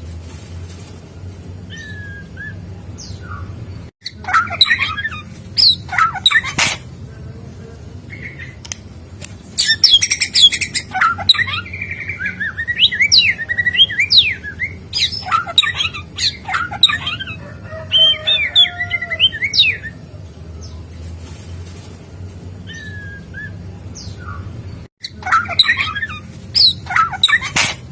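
White-rumped shama singing in bursts of rapid, varied whistles and chirps, with a long stretch of song from about ten to twenty seconds in. A steady low hum runs beneath.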